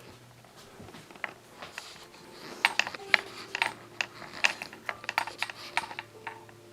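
A run of sharp, irregular clicks and taps, sparse at first and coming thick from about two and a half seconds in, over a faint steady hum.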